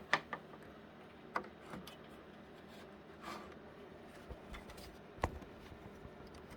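A few sharp clicks and faint rustling of power cables and connectors being handled and plugged in, with the loudest click near the start and another about five seconds in.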